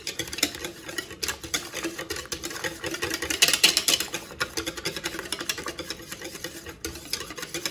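Wire whisk beating a thin egg, flour and milk batter in a ceramic mixing bowl: rapid, even strokes with the wires clicking against the bowl, busiest about halfway through, as the batter is whisked until smooth and free of lumps.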